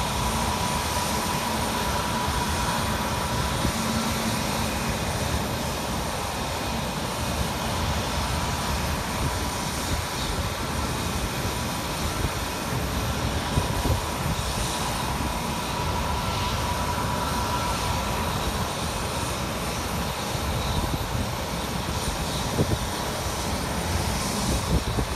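American Airlines jet airliner's engines running at low thrust as it taxis, a steady whine over a rumble.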